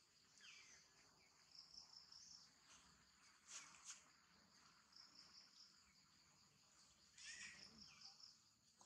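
Near silence with a faint, steady chorus of insects chirring high, broken by a few short high calls: one about half a second in, two sharp ones near the middle, and the loudest about seven seconds in.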